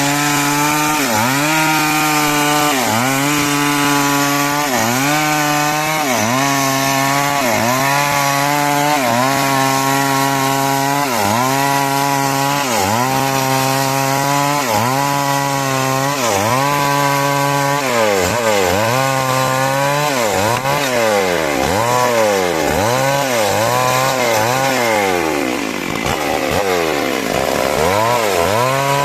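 Chainsaw sawing timber for rafters, its engine pitch dipping under load and recovering about once a second. The dips come quicker and more irregularly in the second half, with one deeper drop in revs near the end.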